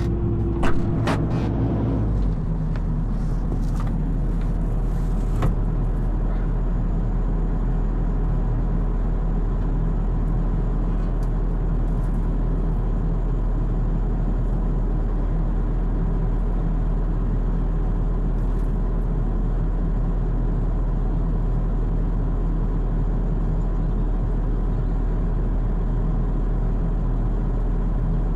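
Excavator's diesel engine idling steadily, with a few sharp clicks and knocks in the first two seconds and the engine note dropping to a lower, even idle about two seconds in.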